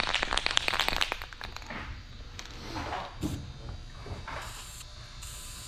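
Aerosol paint can being shaken, its mixing ball rattling in a fast run of clicks. Short bursts of spray hiss start near the end.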